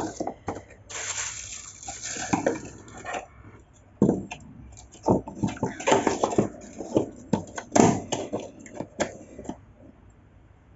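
Packaging being handled: a stretch of rustling about a second in, then a run of irregular clicks and light knocks as the box and its contents are moved and set down.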